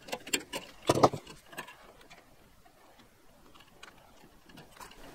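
Small clicks and handling noise of a thermostat wire being pushed into the push-in terminals of a plastic ecobee power extender kit, a cluster of ticks with one louder knock about a second in, then only faint ticks.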